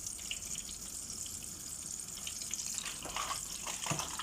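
Eggplant slices soaked in milk frying in hot oil: a steady high sizzle with scattered crackles and spatters, a few sharper pops near the end.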